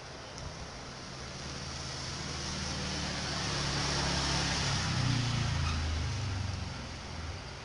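A motor vehicle passing by: engine hum and road noise swell to a peak about five seconds in, then fade away.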